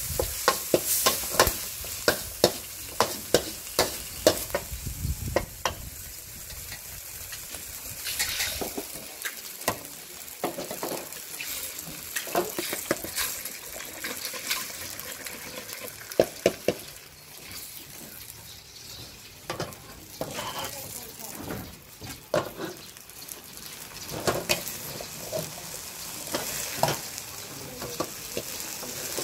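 Pad thai noodles and egg frying in a wok: a steady sizzle with a metal spatula scraping and knocking against the pan. The knocks come quickly in the first several seconds and are more scattered after.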